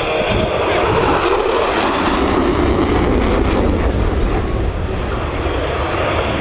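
F-16 fighter jet making a fast, low pass: a loud jet-engine roar that swells about a second in and eases off near the end.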